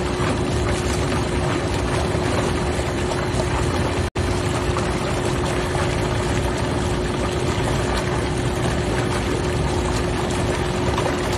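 Hot tub jets and circulation pump running, water churning with a steady hum; the sound cuts out for an instant about four seconds in.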